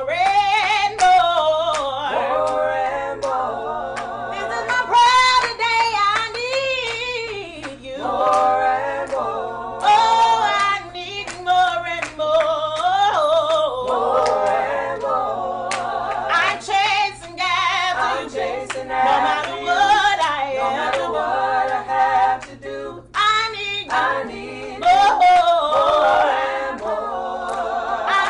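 Several voices singing together a cappella, with no instruments, a woman's voice leading with long bending runs and vibrato over the others.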